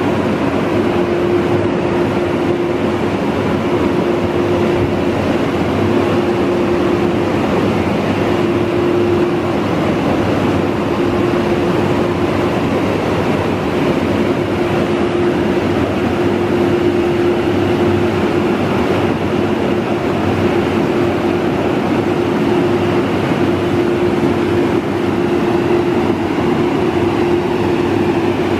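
Overhead car wash dryer blowers running, a loud even rush of air with a steady hum underneath.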